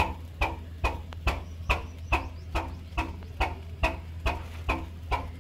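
Old 1989-model stationary engine running at a slow idle, firing in even single beats about two and a half times a second over a steady low hum.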